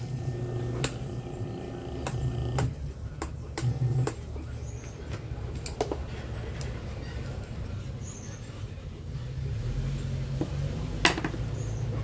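Mallory desk-fan electric motor running bare on the bench on a test run after its rear bearing bushing was replaced: a steady low hum, with a few sharp clicks and taps, the loudest about a second before the end.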